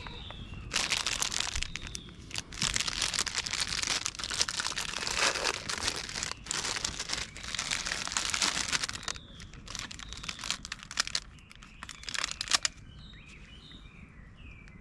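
Crinkling and crumpling of a thin sheet material being handled, in long bursts for the first nine seconds or so, then shorter crackles. Small birds chirp near the end.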